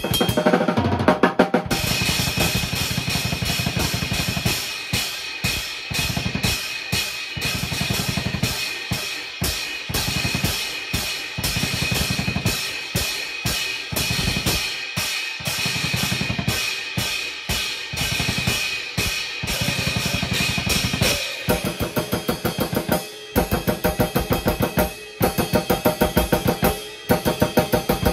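Drum kit being played: a dense, steady run of kick, snare and cymbal strokes with a cymbal ringing over it. The playing stops briefly about a second in. Later it breaks into sparser groups of hits with short pauses between them.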